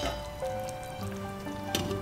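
Background music with steady held notes, and about three-quarters of the way through a single clink as a glass lid is set on the pan.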